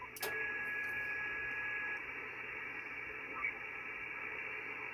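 HF ham transceiver (Icom IC-7300) receiving on the 15 m band, its speaker giving out band-limited static hiss. A click comes just after the start, and the hiss steps up in level. A steady whistle from a carrier follows for about two seconds.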